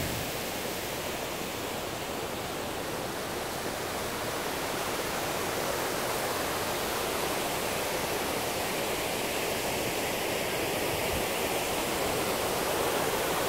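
Steady rush of water spilling over a small dam's concrete weir, growing slightly louder near the end.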